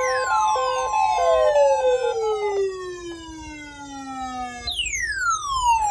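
Electronic weather-radio alert tones. A steady warning alarm tone stops about a second and a half in, and a fast two-pitch beeping stops a second later. Over them, two long electronic sweeps slide down in pitch, one from the start and a second beginning near the end.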